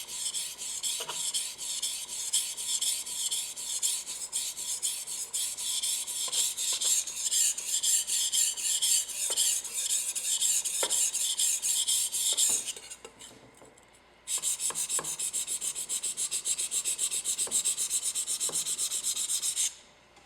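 Steel blade of a hammered Damascus santoku knife stroked rapidly back and forth across a whetstone, a steady scraping stroke after stroke as the heel end of the edge is sharpened. The strokes stop for about a second and a half a little past halfway, then carry on.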